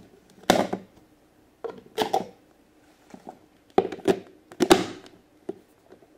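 Hard plastic stacking cups knocking and clacking as they are set into a plastic honey-pot container and its plastic lid is fitted on: a handful of separate knocks a second or two apart, bunched closer together near the end.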